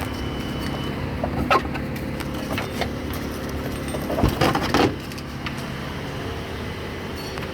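A few short metallic clicks and knocks of hand tools at work on the engine's belt drive: one about one and a half seconds in and a louder cluster about four to five seconds in, over a steady background hum.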